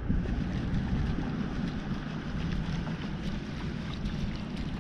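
Steady wind noise on the microphone, strongest low down, with a few faint ticks.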